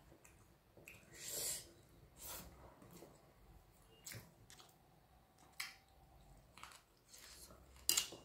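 A person eating rice by hand from a steel plate: quiet chewing and fingers mixing the rice, with scattered soft clicks and short rustles. The loudest click comes near the end.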